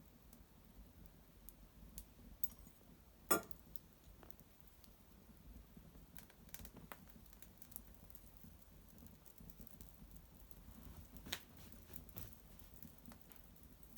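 Small fire of dried maple twigs crackling quietly, with scattered faint ticks and snaps and two louder pops, about three seconds in and about eleven seconds in.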